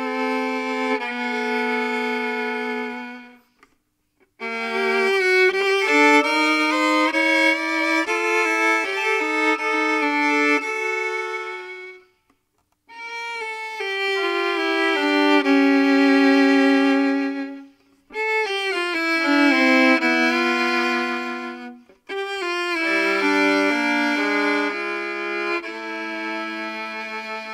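Music: a violin plays a melody in phrases a few seconds long, with brief silences between them.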